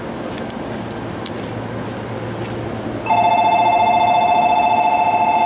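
Electronic platform departure bell ringing: a loud, rapid two-tone trill that starts about three seconds in and carries on to the end, signalling that the train is about to leave. Before it, a steady low rumble.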